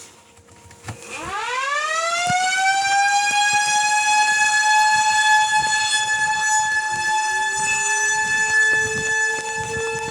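Outdoor civil-defense warning siren winding up about a second in, its pitch rising quickly to a steady loud wail, sounding for a tornado warning. A second, lower siren tone comes in about seven seconds in and slowly climbs.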